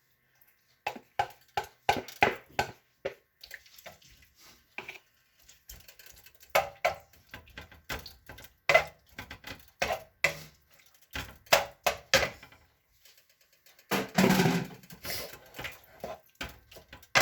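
Cooking utensils knocking and scraping in a pan as chicken pieces are put in and stir-fried: many short irregular clicks and clanks, with a louder rush of noise lasting about a second near the end.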